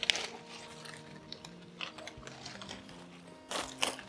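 Leafy tej patta (Indian bay leaf) branches rustling and crackling as they are handled and stripped, in short scattered bursts with the loudest crackles near the end. Soft background music with held notes plays underneath.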